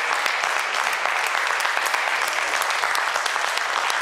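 Crowd applauding steadily: many hands clapping at once, with a few voices underneath.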